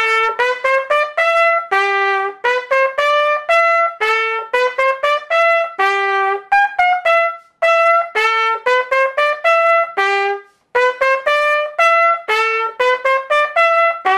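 Solo trumpet playing a bouncy pop riff of short, detached notes, with no other instruments under it. It pauses briefly twice.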